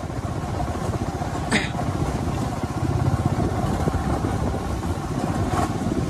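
Motorcycle engine running as the bike rides along a dirt track, with two short sharp knocks, one about a second and a half in and one near the end.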